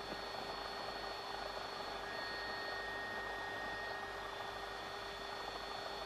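Steady aircraft noise heard from aboard: an even hiss with a few constant whining tones and no change in level.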